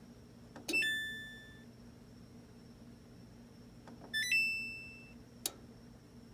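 Samsung electric dryer's control panel sounding a short stepped electronic chime twice, about a second in and about four seconds in, with a sharp single click about a second after the second chime. The dryer clicks but won't start; the click sounds like the relay on the control board, and the repairer suspects an open thermal cutoff.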